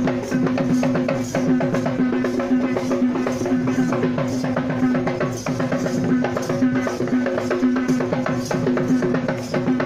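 Sri Lankan traditional drums beaten in a fast, dense rhythm for Kandyan dancing, with a steady held tone running under the drumming.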